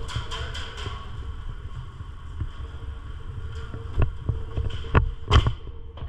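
Steady low rumble with a faint high hum, broken by four or five sharp cracks between about four and five and a half seconds in.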